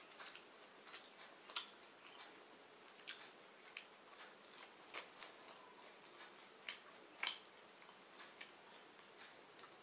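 Faint eating sounds of a meal of watered rice and fried fish eaten by hand: irregular soft clicks and small crunches of chewing, uneven in spacing and loudness, over a low hiss.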